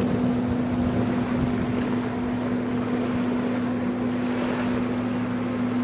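Steady low hum of the docked ferry MV Salish Orca's engines, with wind noise on the microphone.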